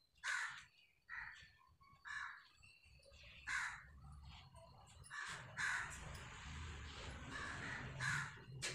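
Hands stirring and crumbling fine, dry, cement-dusted sand in a plastic bowl: a soft gritty rustle that gets busier in the second half. Over it a bird calls again and again, short calls about once a second.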